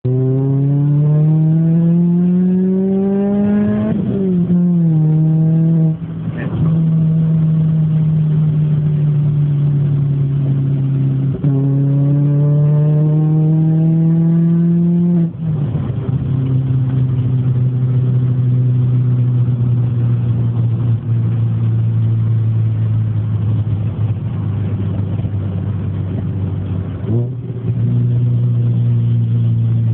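Car engine with a new exhaust manifold and exhaust, driven hard. The engine note climbs steadily, drops at a gear change about 4 seconds in, climbs again and drops at another change about 15 seconds in, then holds steady revs.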